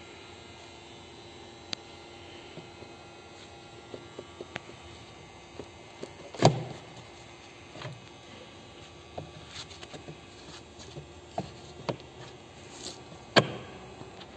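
Scattered light clicks and two sharp knocks, about seven seconds apart, over a faint steady hum.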